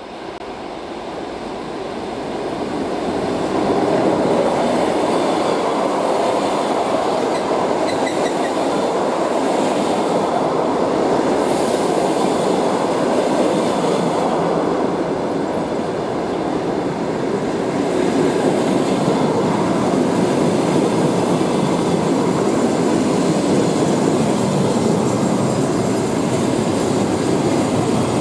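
Passenger train coaches rolling past close by as the train pulls into the station: a steady rumble of wheels on rails that builds over the first few seconds and then holds.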